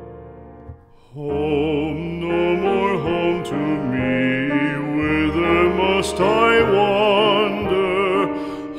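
Background music: piano notes fading out, a brief pause about a second in, then a slow ballad begins, a singer's wavering voice over sustained accompaniment.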